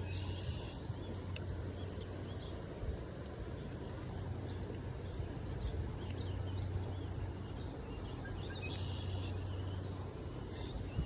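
Creekside outdoor background: a steady low hum over an even rushing haze, with two short high-pitched calls, one near the start and one about nine seconds in.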